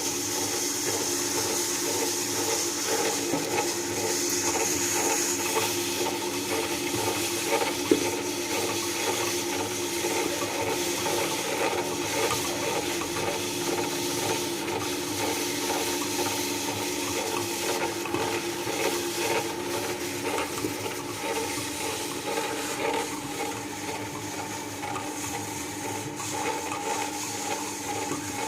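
Electric mixer grinder running steadily while it kneads atta dough in its jar, the motor's hum mixed with the churning of the dough. There is one sharp knock about eight seconds in.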